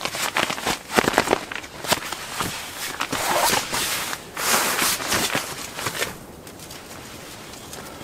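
Crinkly rustling and crackling of nylon sleeping bags and an inflated Thermarest NeoAir air pad being handled and shifted on a cot, the pad's crinkly fabric crunching like empty chip bags. The handling noise stops about six seconds in.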